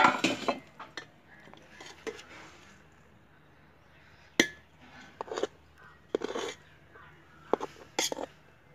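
Metal utensils clinking and knocking against a cooking pot and dishes: a few separate sharp clinks and short clattering scrapes, the first and loudest right at the start.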